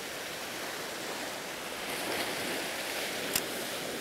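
Ocean surf washing steadily on the beach, with one sharp click about three and a half seconds in.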